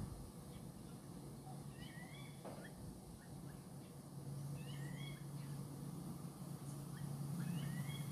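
A bird calling three times, about three seconds apart, each call a short pair of rising whistled notes, over a low steady hum that grows louder about halfway through.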